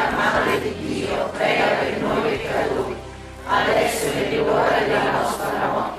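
A group of voices singing a hymn together, in two long phrases with a short dip in between.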